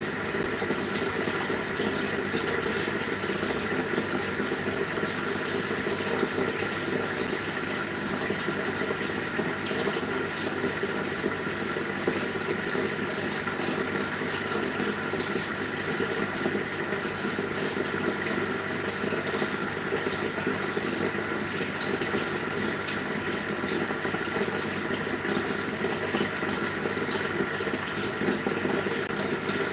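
Aquarium air stones bubbling steadily, a continuous stream of air bubbles rising through the tank water.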